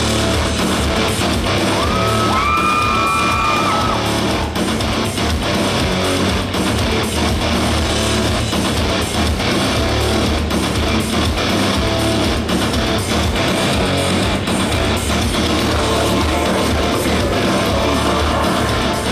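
Loud rock backing track with strummed guitar, played over a hall's PA system for a stage performance. A few short high tones glide up and hold about two to three seconds in.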